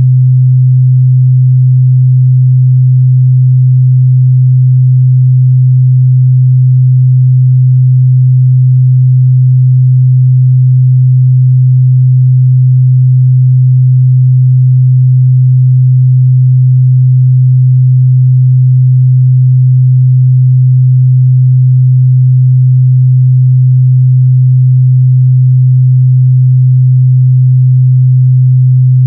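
A pure 128 Hz sine-wave test tone, held steady and loud without a break.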